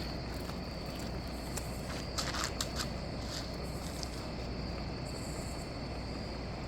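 Quiet outdoor evening ambience: a steady, thin, high insect drone over a low background hush, with a few scuffs like footsteps on wet ground a little after two seconds in.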